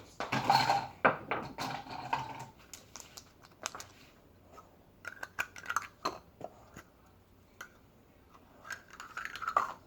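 Eating at a table: cutlery clicking and clattering against dishes, with chewing, busiest in the first couple of seconds and then scattered clicks.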